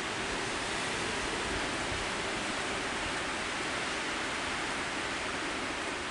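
Steady rain and wind: an even, unbroken hiss.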